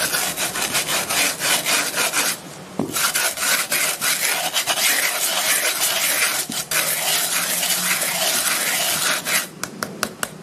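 A round metal rasp scraping the inside rim of a cast cement flowerpot in rapid back-and-forth strokes, filing the rough edge smooth. There is a brief pause about two and a half seconds in, and the strokes thin out to a few separate scrapes near the end.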